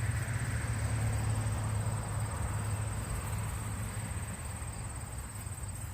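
A steady low hum with a constant high, thin insect drone above it, and a soft rustle of loose soil being handled in the first couple of seconds.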